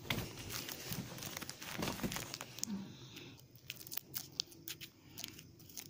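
Trading card pack wrapper crinkling and tearing as it is opened, a dense run of small crackles and scrapes that thins out about halfway through.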